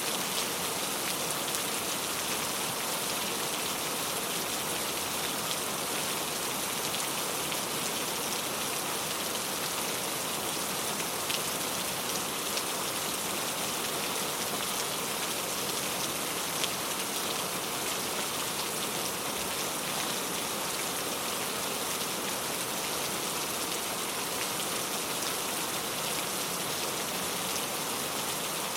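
Heavy rain falling steadily, a dense even hiss with scattered individual drop ticks.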